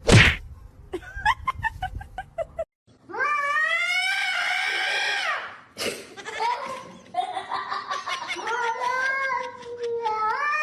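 Cat yowling in long drawn-out calls that waver and glide in pitch. Before it come a sharp knock and a few short, quick calls.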